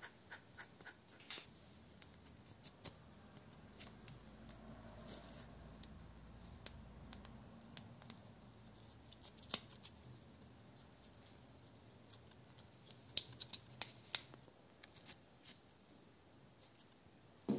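Steel parts of a pneumatic drill's spindle assembly handled and fitted together by hand: scattered small metallic clicks and light scrapes, sharpest about halfway through and in a quick cluster a few seconds later.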